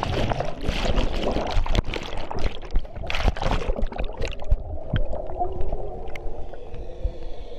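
A camera plunging into lake water: a splash, then underwater rushing and bubbling with sharp crackles. After about four seconds the sound turns quieter and muffled.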